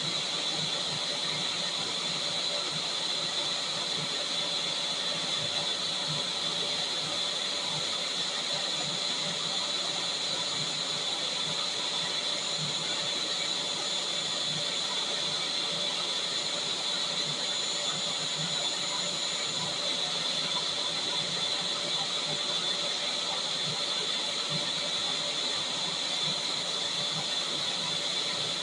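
Vacuum cleaner running continuously: a steady high-pitched motor whine over rushing air, unchanging in level and pitch.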